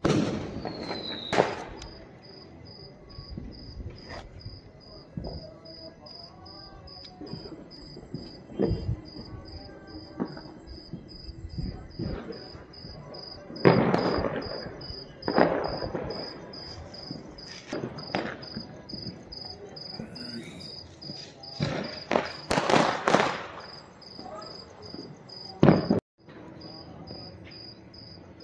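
Diwali firecrackers going off at irregular intervals, about ten sharp bangs, the loudest about halfway through and in a quick cluster later on, over a steady chirping of crickets.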